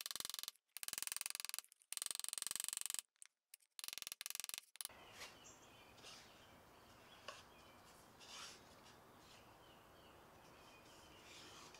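Small ball-peen hammer tapping rapidly and lightly on a copper rivet, peening its head over, in quick runs with short pauses; the tapping stops about five seconds in. Then faint handling of the wooden box, with a few soft rubs and clicks as its lid is swung open on the rivet.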